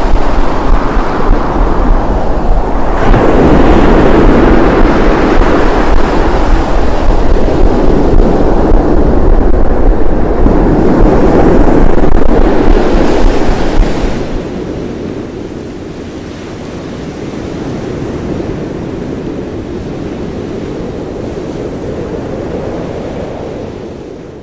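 Ocean surf washing and surging in slow swells, with a deep wind rumble on the microphone. About two-thirds of the way through the sound drops sharply in level and loses the rumble, then fades out at the end.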